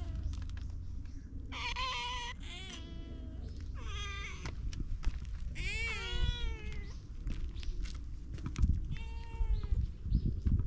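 Stray cats meowing, about five separate meows spread over several seconds, some rising and falling in pitch, over a steady low rumble.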